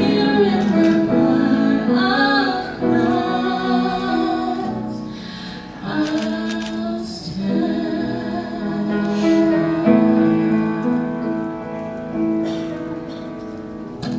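Music: a woman singing a slow song in long held notes over instrumental accompaniment.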